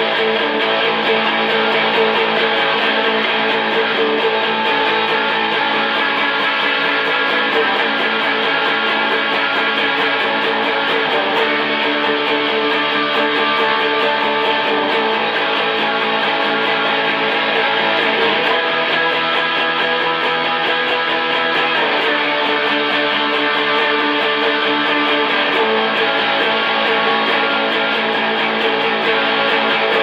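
Hollow-body electric guitar strummed in a fast, even rhythm, with the chord changing a few times in the second half.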